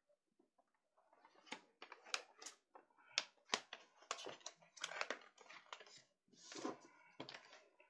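Paper rustling and crinkling as sheets are handled and folded by hand. Irregular crisp crackles start about a second in.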